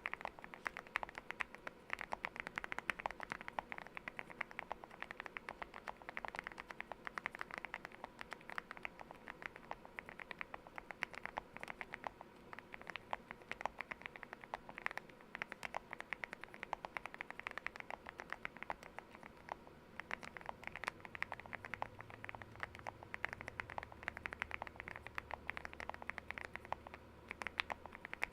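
Continuous typing on a Leobog Hi75 mechanical keyboard with lubed Gateron Milky Yellow linear switches, tape-modded and foamed, with MOA-profile keycaps. Keystrokes come quickly and unevenly, several a second, as a steady stream of soft clacks.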